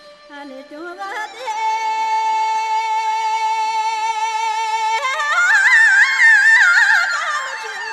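Background music of a solo singer in Tibetan nomad-song style. The voice slides up, holds one long note, then rises about five seconds in into a high, wavering, ornamented line before falling near the end.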